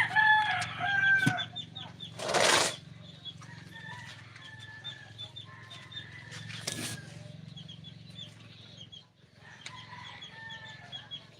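Chickens calling and clucking, with a drawn-out call in the first second or so and many short high chirps throughout. Two short loud swishing noises come about two and a half and seven seconds in.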